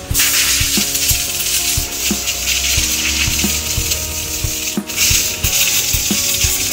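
Compressed air hissing as it blows dust out of a dirty car engine air filter, in two long blasts with a brief break about five seconds in.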